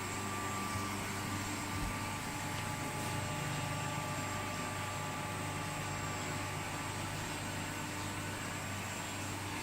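Industrial straight knife grinder running steadily: a low motor hum under an even hiss, with a few faint steady tones.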